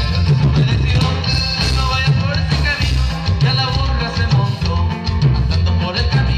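Live band playing a huapango on amplified guitars and drum kit through PA speakers, with a strong, steady bass beat.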